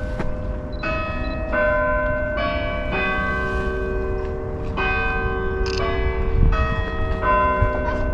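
Bells ringing a run of different notes, a new strike about every half second to a second, their lower tones hanging on under the later strikes.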